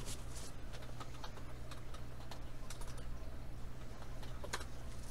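Scattered light clicks and taps at an irregular pace, over a steady low hum.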